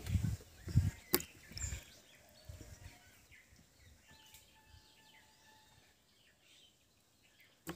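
Quiet outdoor ambience with faint bird calls. A few dull thumps and a sharp click come in the first two seconds, and another sharp click comes near the end.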